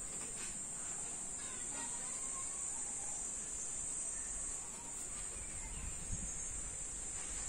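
Insects buzzing in one continuous, steady high-pitched drone.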